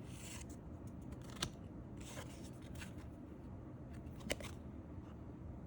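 Magic: The Gathering trading cards being handled and slid past one another: faint swishes, with two short clicks about a second and a half in and again near four seconds.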